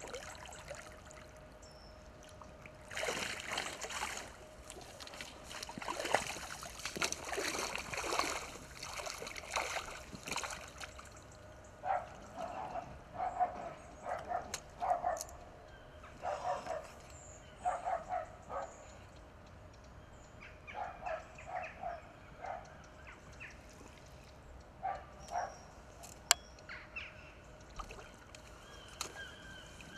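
Water splashing and sloshing in bursts for several seconds as a big hooked barbel thrashes at the surface and is drawn in towards a landing net in the shallows. From about twelve seconds in, a run of short, repeated animal calls comes in clusters.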